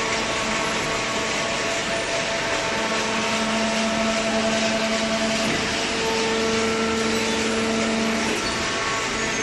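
Hydraulic cardboard baler running: a steady machine hum over a hiss of noise, with the hum growing stronger about three seconds in and easing back about a second before the end.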